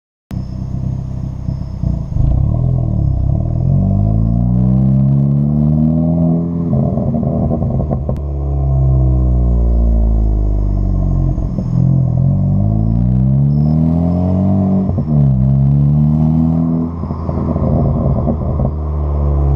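2013 Ford Focus ST's turbocharged 2.0-litre four-cylinder, with a big BorgWarner EFR 6758 turbo, catless downpipe and MBRP cat-back exhaust, revving up and falling back several times. As the revs drop, the exhaust crackles and pops quickly from the tuned-in overrun crackle map.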